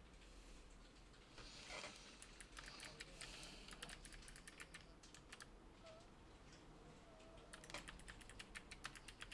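Computer keyboard being typed on: faint key clicks in two quick runs, the first starting about two seconds in and the second near the end.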